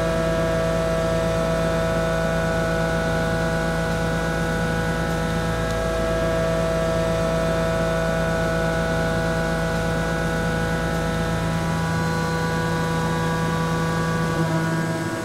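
Walter M3024 indexable face mill (50 mm, six inserts) finish-milling 42CrMo4 steel at about 1,270 rpm: a steady humming cutting tone with several held pitches, whose low part drops away about three-quarters of the way through and whose tones shift slightly near the end as the cutter reaches the edge of the workpiece.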